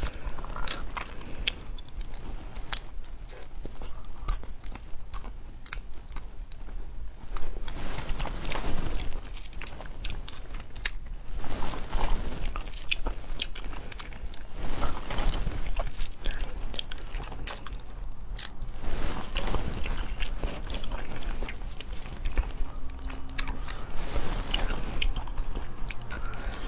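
Close-up eating of spicy stir-fried snails in the shell: repeated sucking and chewing, with many small sharp clicks and a louder burst every few seconds as each snail is eaten.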